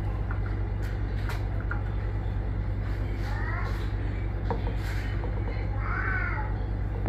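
Steady low hum under background noise, with a few faint clicks and two short distant calls about three and six seconds in.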